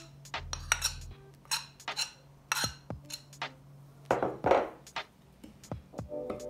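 A metal spoon clinking and scraping against a glass mixing bowl and a china saucer as butter is scraped into flour and worked in. It is a string of sharp clicks, with a longer, louder scrape about four seconds in.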